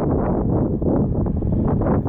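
Strong wind buffeting the microphone: a loud, continuous low rumble that flutters unevenly.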